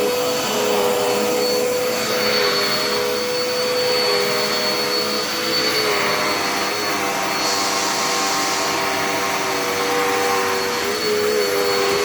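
Dirt Devil Endura Reach vacuum cleaner running steadily, with an even motor whine and a brief rise in hiss about seven and a half seconds in.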